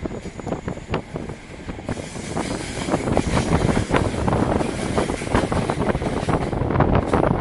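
Passenger train running, its carriage rattling and its wheels clicking over the rails, growing louder about two seconds in.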